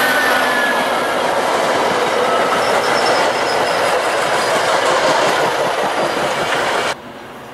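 Metra commuter train's bilevel passenger cars rolling past close by: a steady rush of steel wheels on rail with clickety-clack over the joints. The sound cuts off abruptly near the end.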